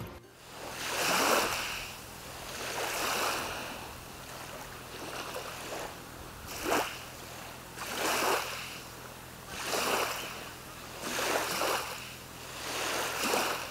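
Small waves washing in, one surge every one and a half to two seconds.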